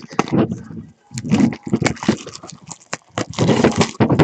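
Crinkling, tearing and rustling of a sealed trading-card box's packaging being unwrapped and opened by hand, in a run of irregular scratchy bursts.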